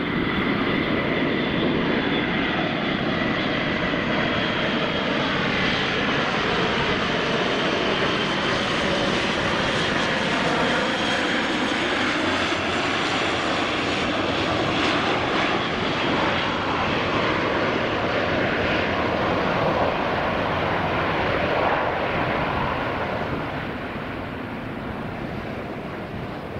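Airbus A400M's four Europrop TP400 turboprops with eight-bladed propellers, running loudly on a low landing approach. The propeller tones fall in pitch as the aircraft passes, and the sound fades near the end.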